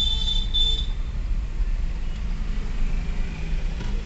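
Car driving in city traffic, heard from inside the cabin: a steady low rumble of engine and road noise. A short high-pitched beep ends within the first second.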